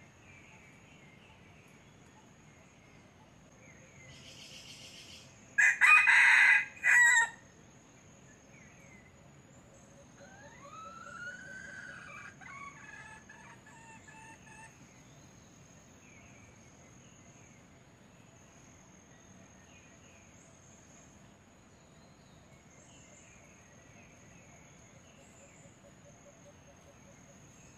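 Red junglefowl rooster crowing once, loud and short, about six seconds in. A steady high insect whine runs underneath, with fainter bird calls after the crow.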